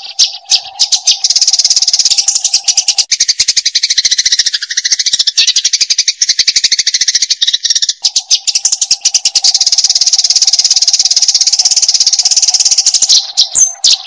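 Eurasian tree sparrow chirping in a rapid, dense run of high chattering calls. A steady low tone sits underneath for the first three seconds and comes back about eight seconds in.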